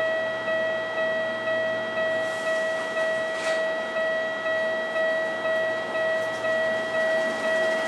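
Railway level crossing warning bell ringing over and over, about two dings a second, a steady even rhythm.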